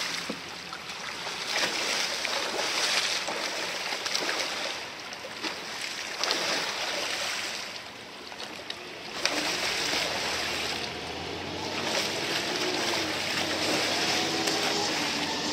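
Rushing river current with repeated splashes from a freestyle kayak as its ends slice into the eddy line and the paddle sweeps through the water, swelling and easing every second or two.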